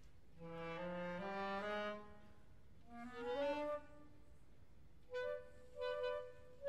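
Concert band playing quietly: short phrases of rising notes in the wind instruments, separated by pauses, then two brief held notes near the end.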